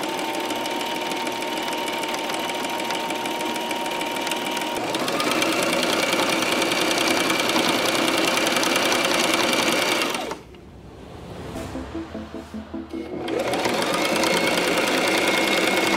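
Brother electric sewing machine stitching denim at speed, its motor whine climbing as it speeds up about five seconds in. It stops suddenly just after ten seconds, goes quieter and uneven for a couple of seconds, then speeds back up and runs on.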